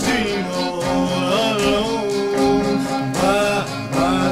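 A 1958 vocal-group ballad recording: voices holding and gliding through sung notes over a guitar accompaniment, with no lyric words.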